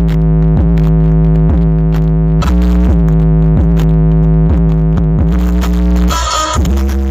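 Loud electronic dance music played through stacked sound-system speaker towers: held synthesizer chords over a very heavy bass, with a kick drum about twice a second. A short hissing burst cuts in just after six seconds.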